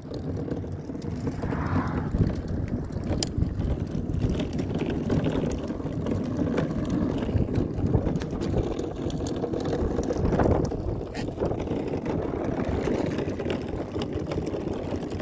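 Hard plastic wheels of a toddler's push car rolling over asphalt: a steady rattling rumble full of small clicks.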